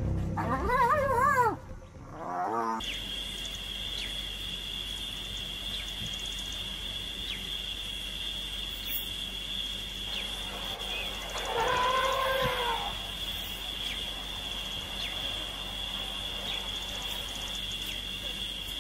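Spotted hyenas fighting, giving loud wavering squeals in the first second and a half and a shorter one near three seconds. Then a steady, high-pitched insect drone, broken about twelve seconds in by a single drawn-out, arching animal call.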